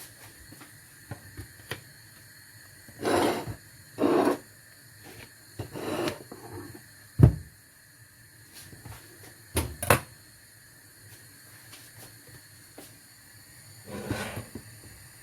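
Kitchen handling noises: a few short scraping rustles, a single sharp thump about seven seconds in, and a couple of clicks near ten seconds.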